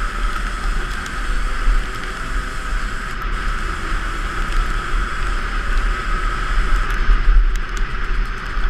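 Dirt bike engine running steadily, muffled, under heavy wind rumble buffeting the action-camera microphone.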